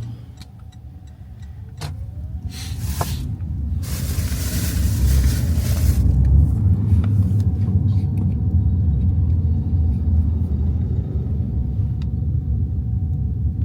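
Low, steady road and engine rumble inside a moving car, growing louder over the first few seconds and then holding. A brief rush of hiss comes about four to six seconds in.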